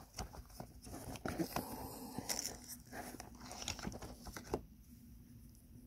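Silicone mold being flexed to release cured resin cabochons: soft crackling, peeling and small clicks as the resin pulls free of the silicone, dying away about four and a half seconds in.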